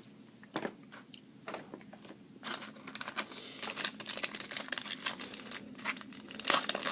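Trading-card pack wrapper being torn open and crinkled: a few light clicks at first, then denser crinkling from about two and a half seconds in, loudest near the end.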